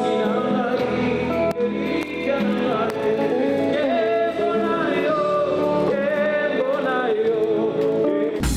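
Live gospel music: a singer with choir and band accompaniment, the voices wavering over steady chords. Just before the end it cuts abruptly to a loud electronic sound.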